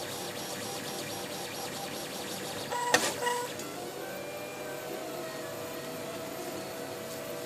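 dApA 1 3D printer's stepper motors whining steadily as it prints, with a sharp click about three seconds in, then a steady held tone from the motors.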